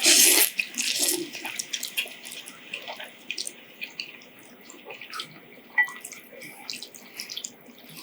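Korean instant noodles being slurped and chewed: a loud wet slurp at the start and another about a second in, then smaller wet chewing and mouth sounds.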